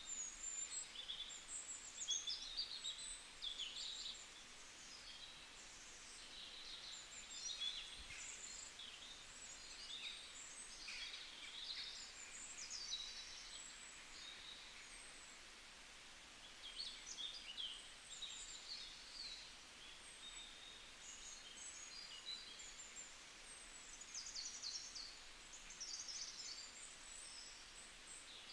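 Small birds chirping and twittering in a quiet, dense chorus of short high calls that overlap throughout, over a faint background hiss.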